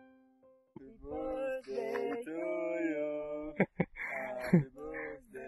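Singing in long held notes, with two sharp clicks a little over halfway through.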